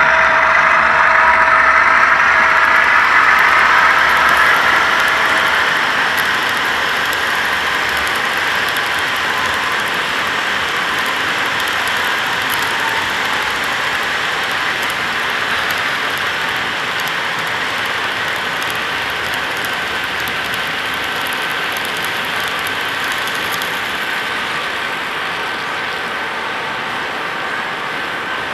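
HO-scale model freight cars rolling past on the layout's track, a steady rolling hiss of small wheels on rail. Over the first few seconds a pitched hum from the departing CN diesel locomotive fades away.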